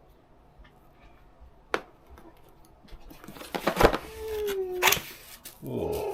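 Knife cutting open a cardboard box, then the flaps and packing being pulled and torn, in scraping strokes that get loud in the second half. There is one sharp click about two seconds in.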